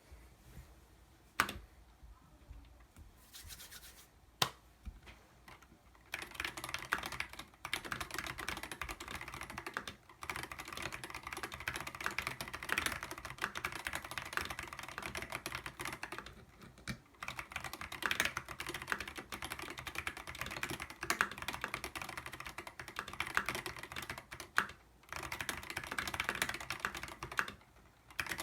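Typing on a mechanical keyboard (Hansung TFG Art) with unlubricated Zealios 62g tactile switches and dev/tty keycaps. Two single key presses come in the first few seconds, then steady fast typing starts about six seconds in, with a few brief pauses.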